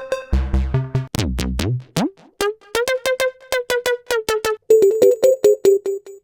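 Serum 2 synthesizer presets being auditioned: deep bass notes, then a falling pitch sweep, then rapid short plucked notes at about four a second, with a bright high tone joining near the end.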